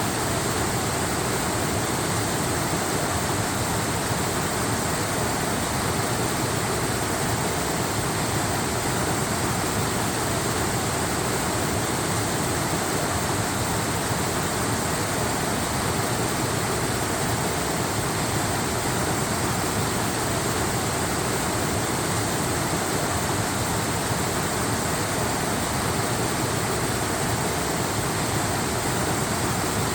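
Steady, even rush of a waterfall, a dense noise of falling water with no breaks or changes.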